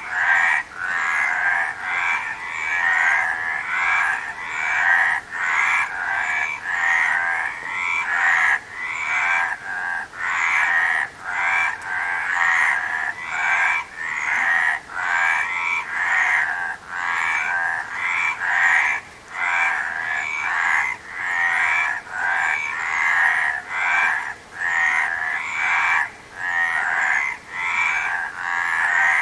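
Frogs croaking in a dense chorus, many calls overlapping, swelling and dipping about once a second.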